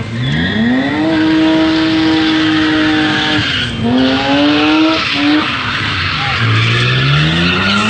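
BMW drift car's engine revving hard and held at high revs, over continuous tyre squeal and skidding. The revs dip briefly about three and a half seconds in, climb again, then fall and build up once more near the end.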